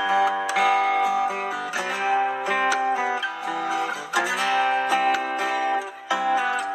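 Solo fingerstyle acoustic guitar playing a melody over ringing bass notes, with a couple of notes gliding down in pitch about a second before the start and again about four seconds in.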